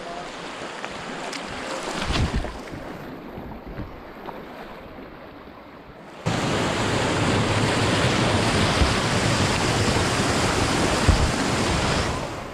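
River rapids rushing around a whitewater kayak, a steady noise of fast water. About six seconds in it jumps suddenly to a much louder, fuller rush of whitewater.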